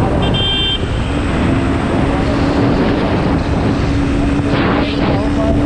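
Motorcycle riding at road speed: a steady engine hum under heavy wind noise on the camera microphone. A short high-pitched beep sounds just after the start.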